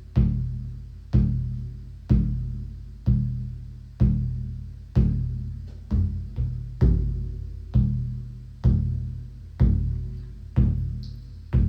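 Shamanic drum beaten in a steady slow pulse, about one stroke a second, each stroke a deep boom that dies away before the next. A little past halfway two quicker, lighter strokes break the pattern.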